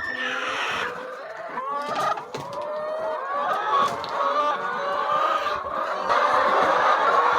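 A flock of chickens clucking and calling, many birds at once, their calls overlapping.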